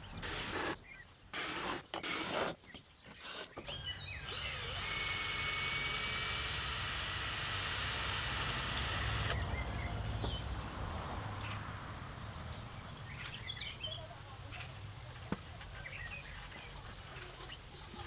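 Greenhouse repair work: a few short knocks and scrapes, then about five seconds of a power tool running with a steady whine that cuts off suddenly, followed by birds chirping over a low outdoor rumble.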